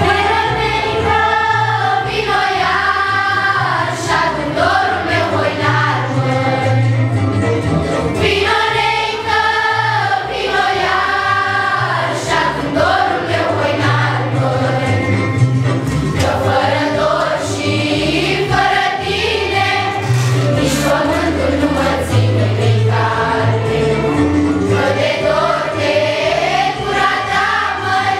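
A group of students singing a Romanian folk song together as a choir, with a steady low accompaniment underneath.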